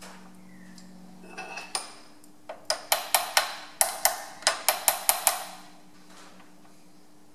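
A steel spanner clinks on the nut of a metal lathe's change-gear stud as it is worked in short strokes to tighten the gear: a quick run of about fifteen sharp metallic clicks, each with a brief ring, from about a second in until just past five seconds. A low steady hum sits underneath.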